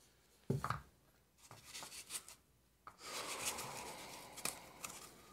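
Hands handling a small DC pump motor and its wires: a short thump about half a second in, then rubbing and rustling with small clicks, steady from about three seconds in.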